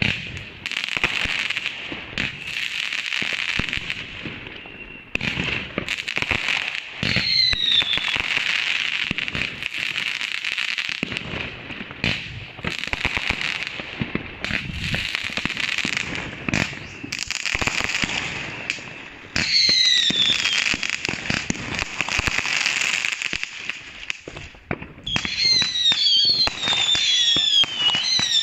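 Fireworks going off in quick succession: a dense run of pops and crackle with a steady hiss, cut by short whistles that fall in pitch, several together near the end.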